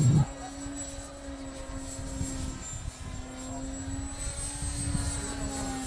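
Radio-controlled Extra 300 aerobatic model plane flying overhead, its motor and propeller holding a steady drone with a thin high whine. Wind rumbles on the microphone throughout, with a brief loud rumble at the very start.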